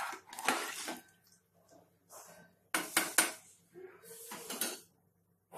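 Metal ladle stirring watery khichdi in an open pressure cooker, scraping and clinking against the pot, with a few sharp knocks a little under three seconds in.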